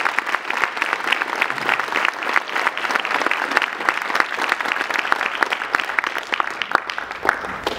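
Audience applauding: many people clapping together, thinning out near the end.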